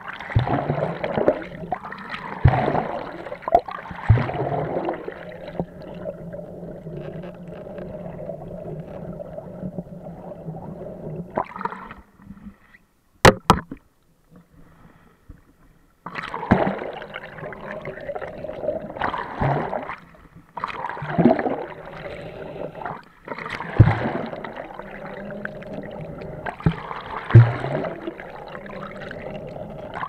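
Sea water sloshing and splashing against a waterproof action camera at the surface, over a steady hum from a small boat's engine. The sound drops out briefly about twelve seconds in, broken by two sharp clicks.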